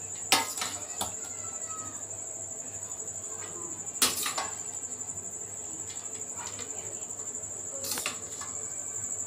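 Knocks and scrapes of drained, parboiled rice being put into an empty aluminium cooking pot, the loudest about a third of a second in and about four seconds in, over a steady high-pitched trill.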